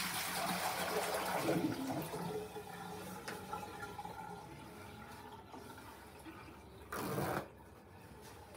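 Water running from a sink tap and splashing into a plastic wash basin as it is rinsed, loudest in the first couple of seconds and then fading. A brief louder rush about seven seconds in.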